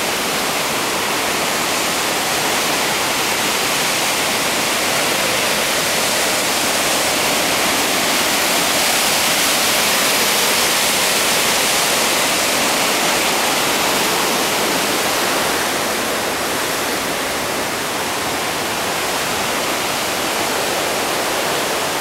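Tad Somphamit waterfall on the Mekong, its rapids rushing over rock ledges: a steady, continuous sound of falling water, a little louder midway through.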